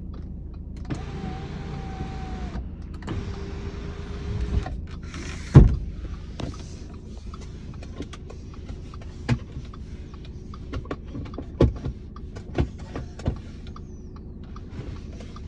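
Audi A5's electric sunroof motor whirring in two runs of about a second and a half each, the second lower in pitch, followed by a single thud about five and a half seconds in. A low steady rumble runs underneath, with scattered light clicks later.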